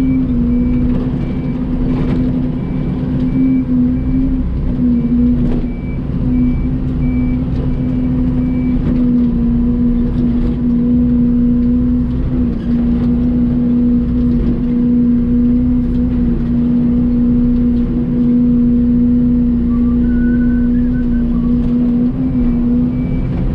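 Mini excavator's diesel engine running at steady working revs with a constant hum, dipping briefly now and then as the hydraulics take load while grading dirt. A back-up alarm beeps evenly through roughly the first third.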